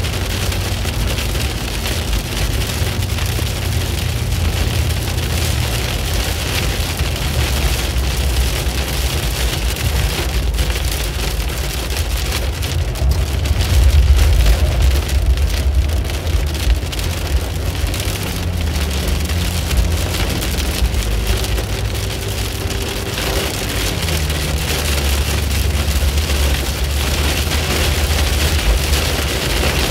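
Heavy rain beating on a car's roof and windshield, heard from inside the cabin, over the low rumble of the car driving on a wet road. The rumble swells briefly about halfway through.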